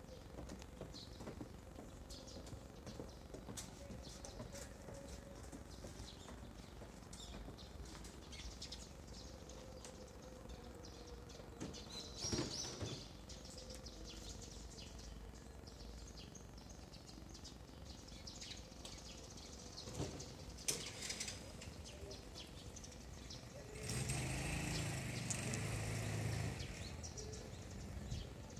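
Sparrows chirping in short, scattered calls over a low background hum. A louder stretch of noise lasting a couple of seconds comes a few seconds before the end.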